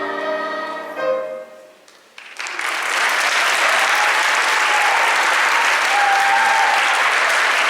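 A choir with piano ends the song on a held chord, cut off by one short final chord about a second in that dies away. After a brief hush, the audience breaks into steady applause.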